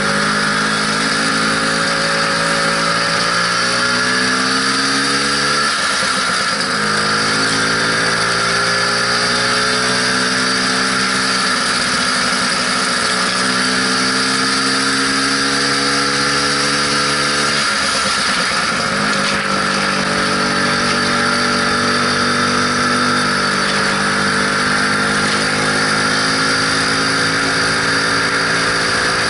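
Lambretta SX 200 scooter's single-cylinder two-stroke engine running under way. Its pitch climbs slowly and drops back sharply twice, about six seconds in and again about eighteen seconds in.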